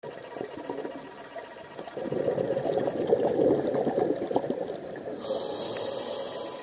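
A scuba diver's breathing, heard underwater: a loud bubbling rush of exhaled bubbles from about two seconds in, then a high hiss of breath drawn through the regulator near the end.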